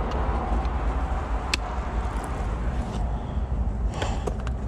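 Steady low wind rumble on the microphone, with a sharp click about a second and a half in and a few softer knocks near the end from the climber's ice tools and gear against the ice.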